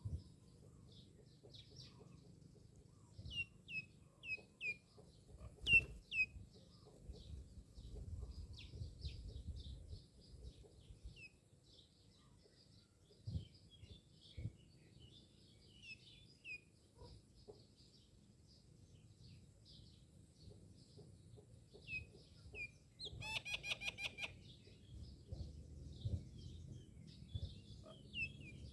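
Myna birds calling: scattered short chirps and quick downward-sliding whistles, then a fast, dense run of calls near the end. A faint low rumble underneath.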